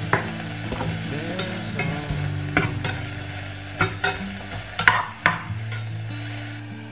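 A cooking utensil stirring and clinking against cookware, with about a dozen sharp knocks, the loudest about four and five seconds in. Soft background music plays underneath.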